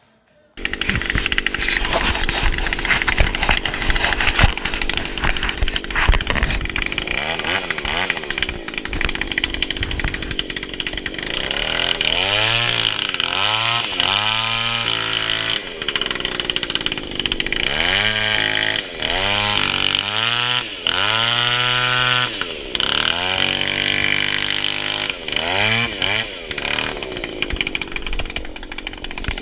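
Power tool cutting into the boat's old transom. The first part is noisy cutting with knocks; from about halfway the motor's pitch surges up and falls back again and again as it bogs and revs under load.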